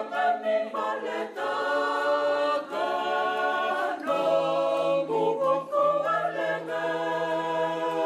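A church choir singing a hymn unaccompanied, in several-part harmony with long held chords that change every second or so. Lower voices come in about four seconds in.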